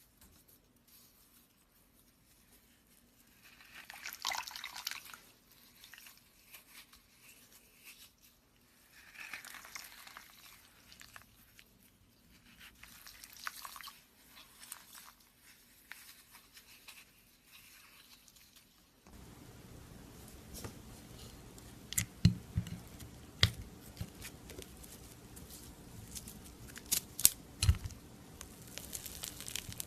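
Slime being pressed and squished by hand: soft, wet squelches in a few slow swells. About two-thirds of the way through, this gives way to a run of sharp sticky pops and crackles.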